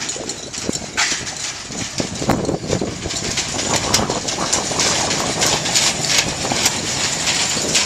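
Tow vehicle's engine running at low revs while it backs a boat trailer down a launch ramp, under a steady noisy outdoor background.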